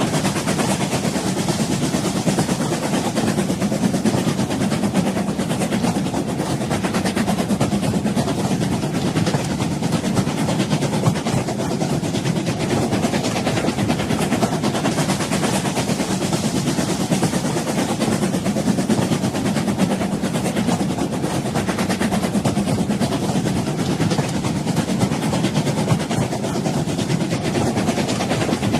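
Old train running on the rails: a steady low rumble with constant fine rattling and no clear beat.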